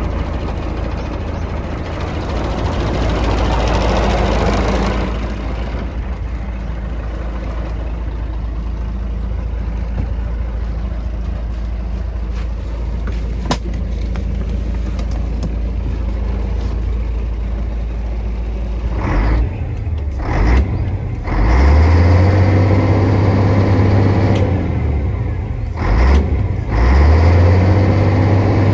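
Scania P124 truck's diesel engine idling steadily, then revved several times in the last ten seconds: a few short blips, then twice held up for about three seconds before falling back. A single sharp click about halfway through.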